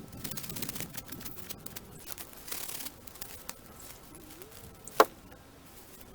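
Hand saw cutting through wood in short bursts of rasping strokes. One sharp snap comes about five seconds in.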